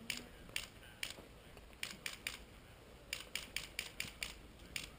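Airsoft pistols firing: about a dozen sharp shots in quick clusters, with the fastest run of about five or six a second in the later part.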